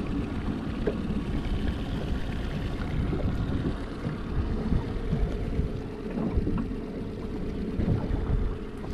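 Fishing boat on choppy lake water, with wind buffeting the microphone. A steady motor hum comes in about halfway through.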